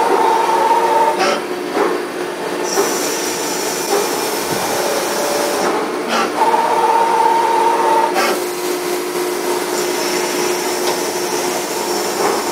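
A metal lathe machines a coarse worm thread on a steel shaft, with a steady mechanical whine from the spindle and cutting tool. The sound shifts abruptly a few times.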